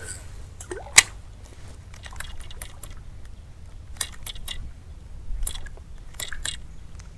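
Lizard Fishing Buster topwater stick lure being twitched across the water surface, making short clusters of small splashes and clicks. A single sharp snap comes about a second in.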